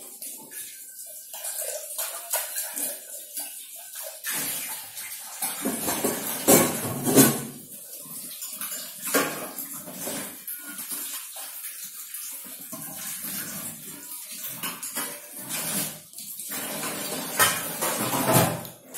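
Tap water running into a kitchen sink while dishes are washed by hand, with clinks and knocks of steel pots and a glass against the sink. The water gets louder about four to seven seconds in and again near the end.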